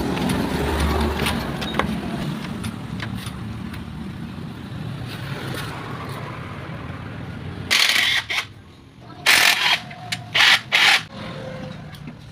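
Motorcycle engine running steadily, slowly fading. Then come several short, loud hissing bursts near the end.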